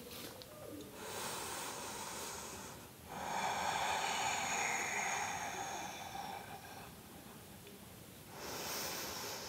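A woman's slow, audible breathing during a held yoga stretch: a breath from about a second in, a long, fuller breath from about three seconds to six, and another starting near the end.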